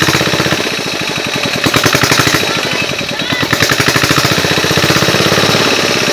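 A small engine running with a rapid, even chugging beat.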